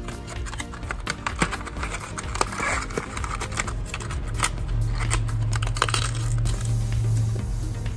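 Fingers handling and picking at a small cardboard retail box and its packaging: a run of light clicks, taps and crinkles as the flap is worked open. A low steady hum comes in for a few seconds in the second half.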